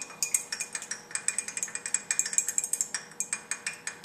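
Glass stirring rod clinking rapidly against the inside of a glass beaker as a salt sample is stirred in water, a quick run of small ringing clinks that thins out near the end.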